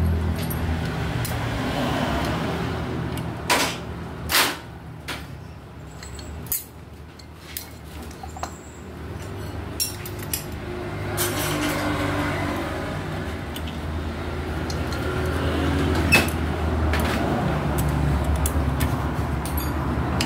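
Metal clutch plates and linings clicking and clunking as they are fitted into the clutch by hand, with two sharp knocks a few seconds in and lighter clicks after. Underneath, a low engine hum from a vehicle nearby fades and then swells again.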